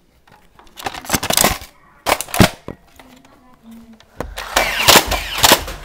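Nerf N-Strike Stampede ECS, a battery-powered full-auto foam-dart blaster, firing in three bursts: two short ones, then a longer one of about a second and a half, each a rapid run of loud clacks.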